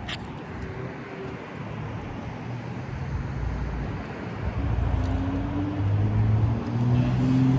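Low rumble of a car outdoors, with a sharp click right at the start. From about three seconds in, low held tones that change pitch in steps come in and grow louder.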